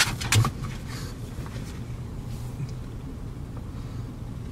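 Car running and rolling slowly, heard from inside the cabin: a steady low hum of engine and tyre noise, with a couple of short sharp sounds at the very start.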